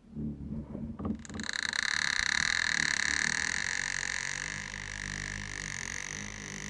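Creaking door hinge: low, rough groaning for about a second, then a long high-pitched squeal that holds steady and slowly fades.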